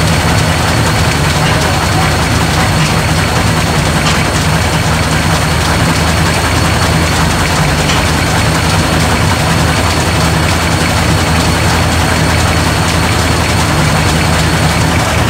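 Large antique tractor engine running steadily at idle.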